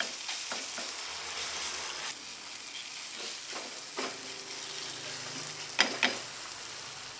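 Oxtail in oily chili sambal sizzling as it is reheated in a nonstick frying pan, stirred and scraped with a wooden spatula. There are two sharp knocks in quick succession near the end.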